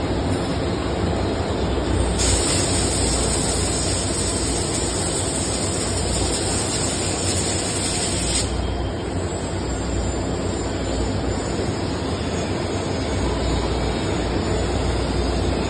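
Hydraulic compression-molding press running, with a steady low drone. A hiss starts suddenly about two seconds in and stops abruptly about six seconds later.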